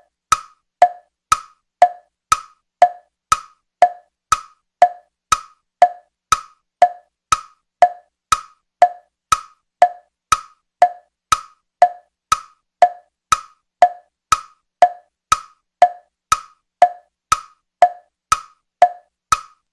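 Tick-tock sound effect: evenly spaced wooden clock-like knocks, about two a second, alternating between a lower and a higher pitch.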